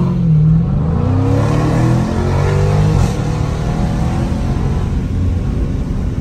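Dodge Challenger Scat Pack's 6.4-litre HEMI V8 under hard acceleration, heard from inside the cabin. The revs climb and drop back at quick upshifts, then settle to a steady drone about halfway through. The exhaust still has its factory mid mufflers, yet it sounds loud enough to pass for a mid-muffler delete.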